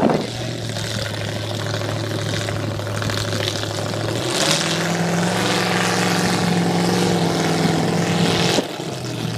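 Engine of a 4x4 mud-racing truck running hard on a mud-bog pass. The engine note climbs to a higher pitch and gets louder about four and a half seconds in, then drops off sharply about a second before the end.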